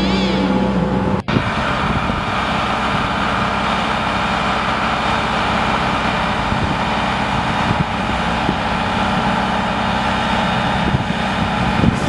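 Heavy road-paving machinery running. An engine hum drops in pitch and cuts off about a second in, then a truck-mounted XCMG surfacing machine's engine and mechanism run steadily.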